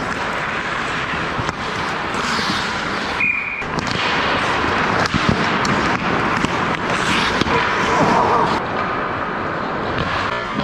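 Ice hockey play close to the net: a steady scrape and hiss of skates on the ice, broken by sharp clacks of sticks and of the puck hitting the goalie's gear.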